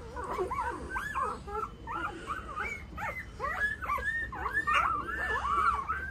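A litter of young Tibetan mastiff puppies whimpering, many short high cries that rise and fall, overlapping several times a second.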